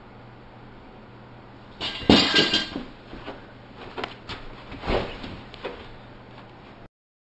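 A cluster of knocks and bumps, loudest about two seconds in, with another sharp knock about five seconds in, over a steady low hum. The sound cuts off abruptly near the end.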